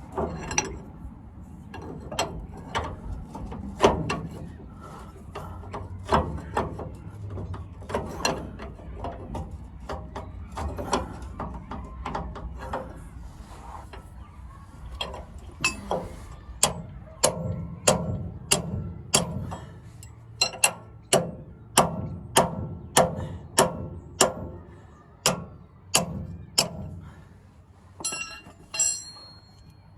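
Hand-tool work on a truck's steering linkage: scattered metal clicks and knocks, then, from about halfway, a steady run of sharp metallic clicks about twice a second.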